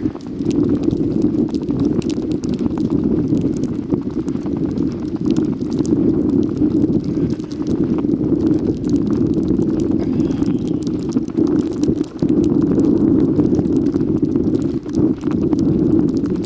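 Wind buffeting the microphone as a steady low rumble, with scattered light clicks over it.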